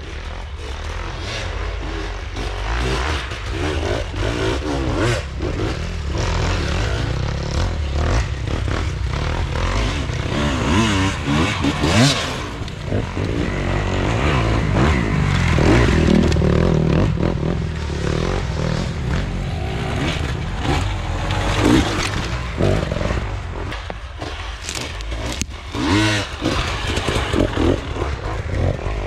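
Enduro dirt bike engine running off-road, its revs rising and falling again and again as it is ridden over rough forest ground, with clattering and scraping from the bike.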